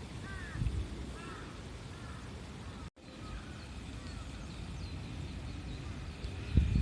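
Small birds chirping in short repeated calls over a steady low rumble, with a brief dropout a little before halfway and a loud low thump near the end.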